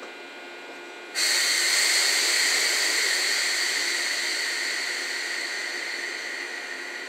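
Sudden loud hiss of compressed air venting from a JNR 117 series electric train's air system, starting about a second in and slowly dying away.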